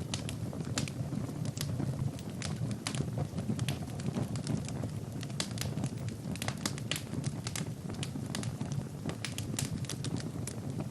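Wood fire burning in a fireplace: a low, steady rustle of flames with frequent, irregular crackles and pops from the burning logs.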